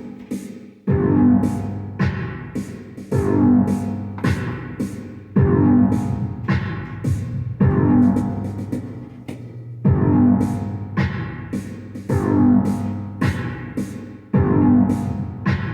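Semi-ambient electronic keyboard music: piano-like synthesizer chords struck repeatedly, one or two a second, each ringing and fading before the next.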